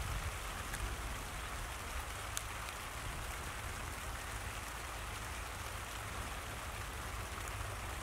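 Steady outdoor background noise: an even hiss with a low rumble underneath and a couple of faint clicks.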